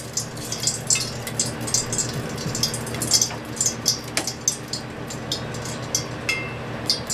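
Hot frying oil in a steel saucepan on a gas burner crackling and popping in quick, irregular snaps, over a steady low hum.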